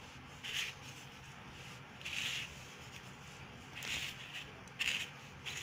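Hand pressing and turning an egg-dipped chicken half moon in dry crushed biscuit crumbs on a steel plate: five or six short, soft crumbly rustles, over a faint steady hum.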